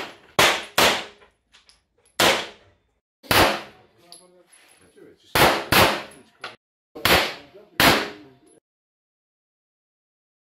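About eight gunshots from a pistol-calibre carbine and a semi-automatic handgun, several fired in quick pairs, each with a short echo. The shots stop and the sound cuts out about eight and a half seconds in.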